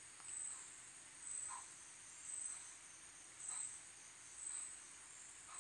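Faint cricket chirping, a short high-pitched chirp repeating about once a second over a steady high hum.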